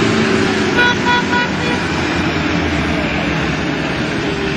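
Off-road race vehicle engine running loud and steady, with four quick horn toots about a second in.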